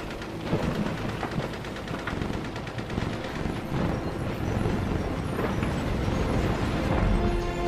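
Background music driven by dense, rapid percussion hits, with held notes coming in near the end.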